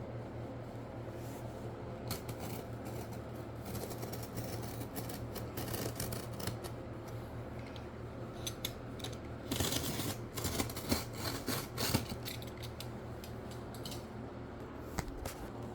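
Handling noises of a handbag and its packaging: light rubbing, scraping and small clicks over a steady low hum, with a louder stretch of rustling about ten seconds in.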